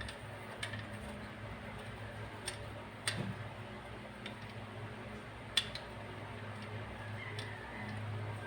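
Scattered light metallic clicks and taps of tools and parts as an oil-free compressor's piston head is put back together, over a steady low hum; the sharpest clicks come about three and five and a half seconds in.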